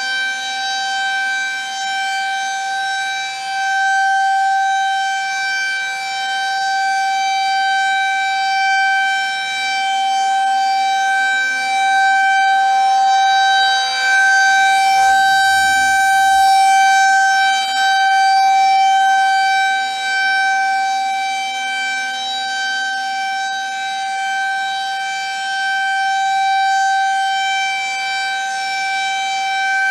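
Federal Signal 2001 rotating tornado siren sounding a steady tone at one unchanging pitch during its monthly test. Its loudness swells and fades every several seconds as the rotating head turns toward and away.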